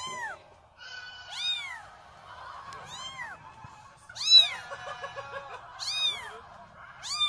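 One-month-old Korean shorthair kitten mewing repeatedly, a short high-pitched call about every second and a half, the loudest one near the middle.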